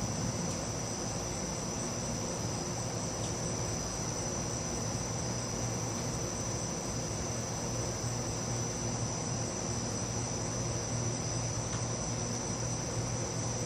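A steady chorus of night insects, a continuous high shrill, over a low steady hum. No thunder is heard.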